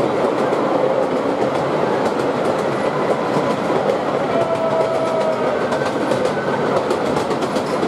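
A miniature-railway train running, heard from its carriages: a steady rumble of wheels on the track with fine rail clicks. About four and a half seconds in, a held squealing tone rises above it for about two seconds.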